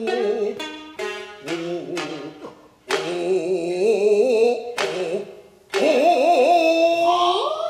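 Kabuki takemoto (gidayū) music: a chanter's voice held in long, wavering notes with heavy vibrato, punctuated by several sharp shamisen plucks. The voice slides upward near the end.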